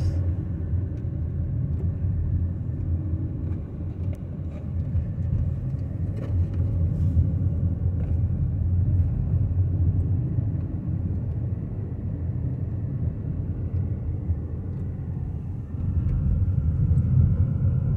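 Steady low rumble of a car driving slowly, engine and road noise heard from inside the cabin, growing a little louder near the end.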